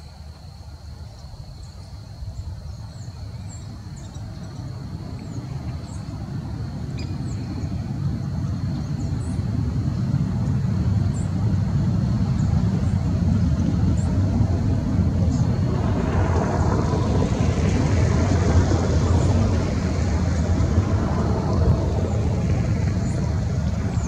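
Low rumble of a motor vehicle going by, building slowly over about fifteen seconds and loudest near the end, over a thin steady high tone and faint short high chirps.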